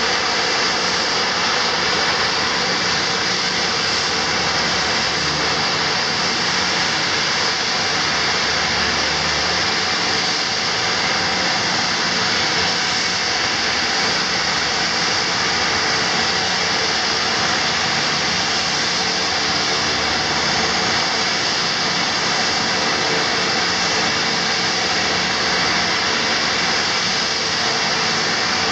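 Dornier 228's twin Garrett turboprop engines idling steadily on the ground, a constant turbine whine with a high steady tone over the propeller noise.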